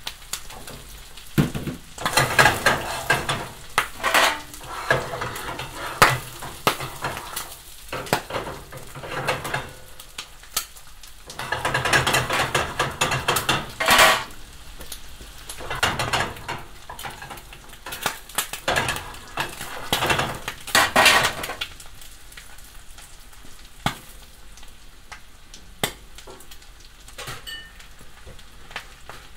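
Isaki (threeline grunt) fillets, bacon and corn frying in foaming butter over high heat, sizzling and spattering, with louder surges several times. Short clinks of metal against the pan come through.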